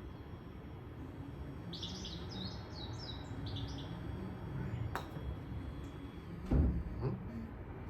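Recorded birdsong ambience from a screen golf simulator: a run of quick, high chirps in the first half. A sharp click follows about five seconds in, then a dull thump a little later.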